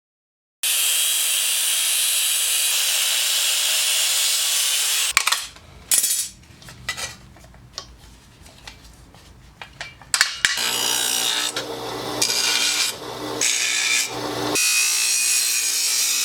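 A power tool working on the metal wagon, with a steady loud hiss for about four seconds. Then come a few seconds of scattered clicks and knocks from handling the work. The tool starts again about ten seconds in, running with a low hum and briefly interrupted several times.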